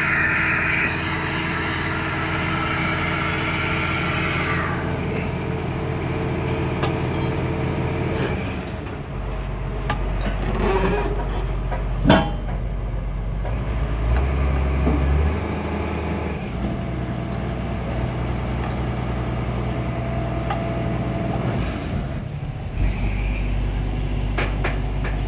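Heavy diesel engine of a piling rig running, its pitch and load shifting several times. A single sharp knock comes about twelve seconds in.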